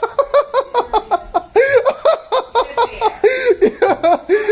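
A person laughing hard, a long run of quick bursts, several a second.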